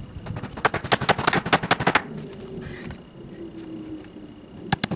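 Staple gun firing staples into pallet wood: a rapid run of sharp clicks lasting about a second and a half, then two more clicks near the end.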